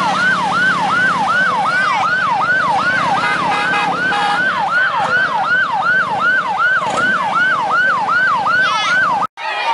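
Emergency vehicle siren in fast yelp mode, each cycle sweeping down and back up in pitch about three times a second, over the low running of a vehicle engine. The siren breaks off abruptly near the end.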